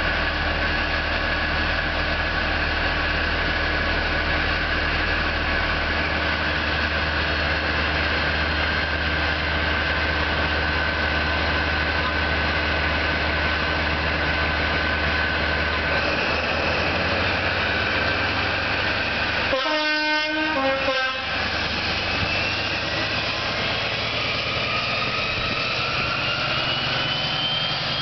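Paxman Valenta 12RP200L V12 diesel of a Class 43 HST power car running with a steady turbocharger whine as the train pulls away. About two-thirds through, the power car's horn sounds briefly, two notes; the turbo whine then rises steadily as the engine powers up.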